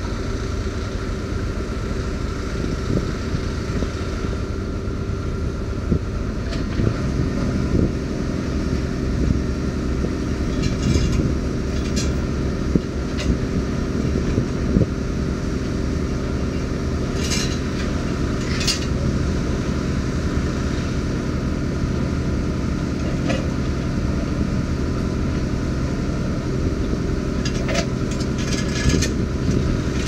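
Excavator-mounted vibratory hammer rig for driving concrete sheet piles running steadily with a dense, even drone. A handful of sharp metallic clinks ring out over it, several of them near the end.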